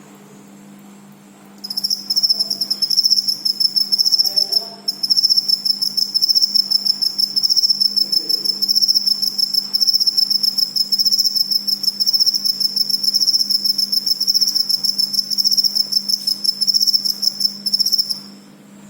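A cricket chirping: a loud, high, rapidly pulsing trill that starts about two seconds in, breaks off briefly about five seconds in, then runs on until shortly before the end.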